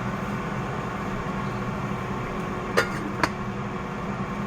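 Steady hum of a running kitchen appliance, with two sharp clinks of utensils or cookware about half a second apart, roughly three seconds in.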